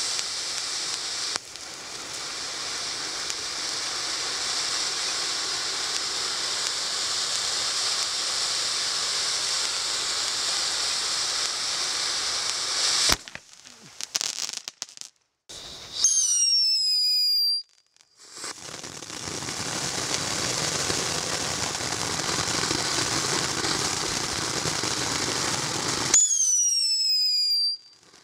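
Ground fountain fireworks. A Jumping Jack Flash fountain sprays sparks with a steady hiss, then ends with a sharp crack and scattered crackling. A Whistling Rain fountain follows with a falling whistle, a second stretch of hiss, and another falling whistle near the end.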